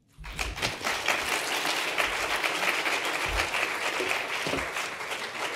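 Audience applauding, starting a moment in and tapering off near the end.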